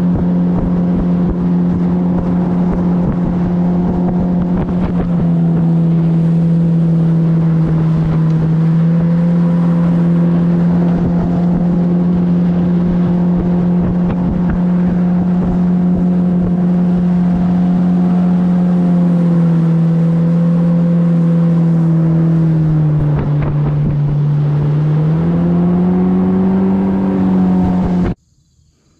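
Outboard motor pushing a jon boat along at steady speed, running at an even pitch; a few seconds before the end the revs dip briefly, then climb again before the sound cuts off suddenly.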